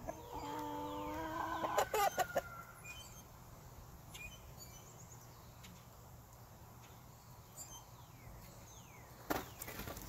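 A chicken gives one long, drawn-out call lasting about two and a half seconds, followed by a few sharp clicks. The flock then stays quiet apart from faint short chirps.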